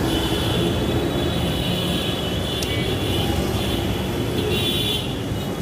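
Steady rumble of busy street traffic, with a high-pitched whine over it that swells near the end.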